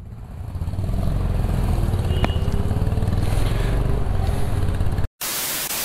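Motorcycle engine running, growing louder over the first second as the bike pulls away and rides on, heard from the pillion seat. About five seconds in, the sound cuts out to silence and gives way to a steady hiss like static, broken by a brief gap.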